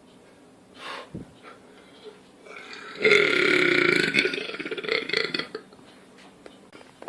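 A man's loud burp on command, one long belch lasting about two and a half seconds, starting about three seconds in and trailing off at the end.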